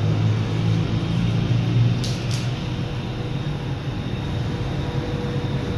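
Steady low rumbling background noise with a faint constant hum.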